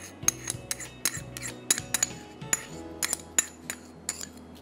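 Metal spoon scraping and clinking against a small ceramic bowl as sauce is scraped out into a saucepan: rapid sharp clinks, about four a second. Faint background music underneath.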